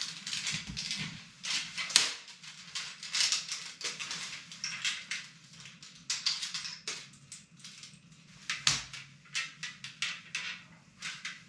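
Rustling from a backpack, then the irregular clicks and rattles of a camera tripod being unfolded and its legs extended, over a low steady hum.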